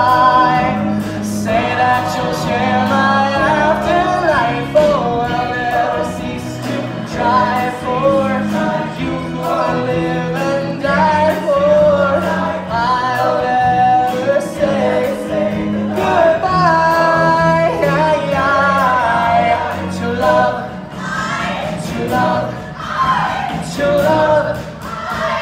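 Stage musical cast singing together in chorus, male and female voices, with held notes and shifting melody lines.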